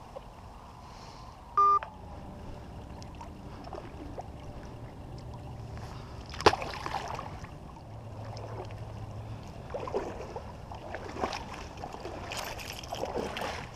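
A short electronic beep about two seconds in, then a mallard decoy tossed onto the water landing with a sharp splash, followed by irregular sloshing as wading boots move through shallow water and dry reeds.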